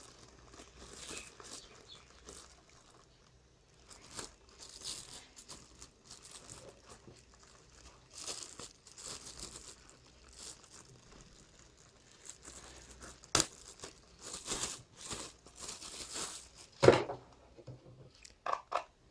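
Plastic packaging crinkling and rustling in irregular bursts as a headset is unpacked and handled. A sharp click comes about two-thirds of the way in, and a louder knock near the end.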